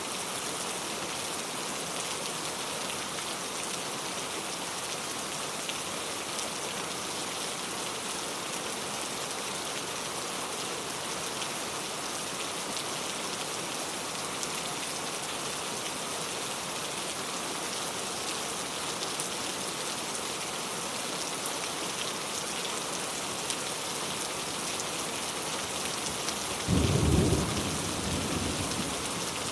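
Steady rain falling, an even hiss. Near the end a short, low rumble of thunder breaks in, the loudest moment, and dies away over a couple of seconds.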